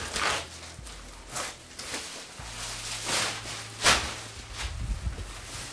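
Plastic wrapping rustling and crinkling in several short bursts as it is pulled off a folded grow-tent canvas, the loudest a little before four seconds in.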